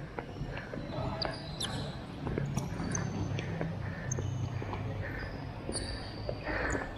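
Futsal ball being kicked and trapped on a tiled sports court: sharp knocks of foot on ball and ball on floor, with sneakers squeaking in short high chirps several times over a low hum.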